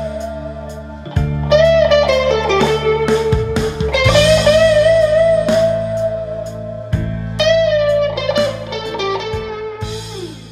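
1999 Mexican Fender Stratocaster electric guitar played in a slow bluesy lead style: long sustained notes with wide vibrato and string bends, over held low notes that change every few seconds. The playing fades out near the end.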